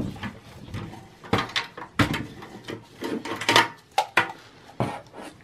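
A desktop power supply's sheet-metal casing being pulled out of a steel computer chassis and handled: a series of metal clunks, scrapes and rattles, with the sharpest knocks about two seconds in and again between three and four seconds in.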